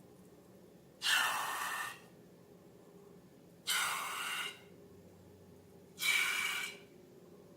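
Three short airy hisses, each about a second long and about two and a half seconds apart.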